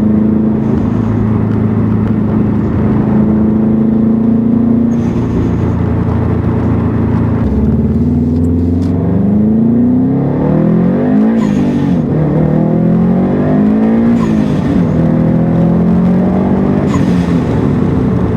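2015 Subaru WRX STI's turbocharged 2.5-litre flat-four engine under way, holding steady at first, then revving up and easing off several times. Short bursts at each lift of the throttle fit the newly fitted HKS blow-off valve venting.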